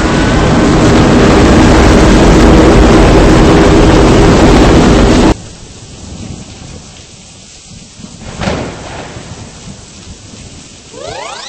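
Storm noise: a loud, steady roar of wind and heavy rain that cuts off abruptly about five seconds in, then softer rain with a rumble of thunder about three seconds later.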